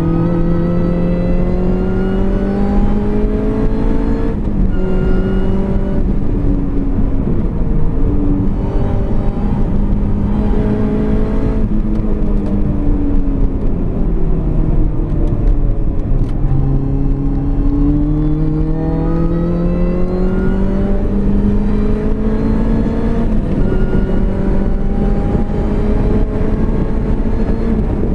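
R53 Mini Cooper S's supercharged 1.6-litre four-cylinder engine under hard acceleration, heard from inside the cabin: revs climb and drop back at each upshift several times. About halfway through the revs fall away for a few seconds as the car slows for a corner, then climb steadily again.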